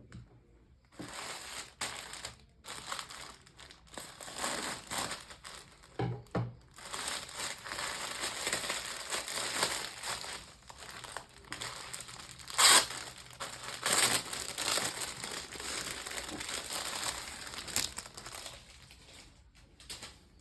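Packaging being handled and opened: irregular crinkling and rustling, with a louder burst about two-thirds of the way through.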